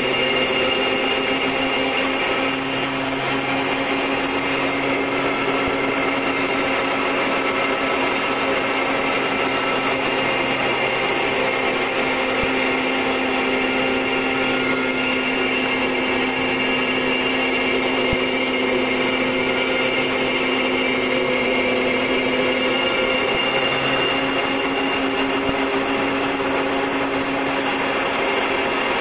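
Short Tucano's turboprop engine and propeller running at steady power, heard from inside the aircraft as a constant low hum with a high whine over it.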